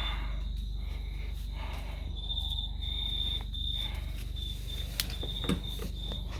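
A cricket chirping in a high, steady trill that pulses on and off, over a low steady hum, with a few light clicks about five seconds in.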